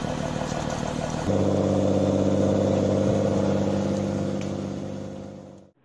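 Homemade skidder's engine working hard to pull itself out of the mud, running at a steady pitch that steps up louder about a second in, then fading away near the end.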